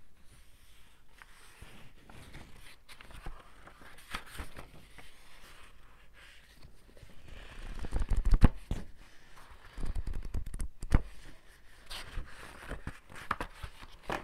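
Paper rustling close to a small microphone: book pages flipped and a loose sheet handled, in irregular crackles and flaps. The loudest bursts come about eight seconds in and again around ten to eleven seconds.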